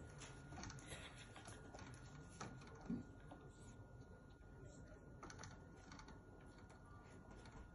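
Faint, irregular light clicks and taps from a cat batting at the feather on a motorized spinning cat toy, with one louder tap about three seconds in.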